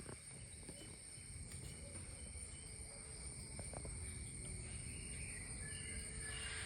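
Faint outdoor background: a steady high-pitched insect drone over a low rumble, with a few short chirps.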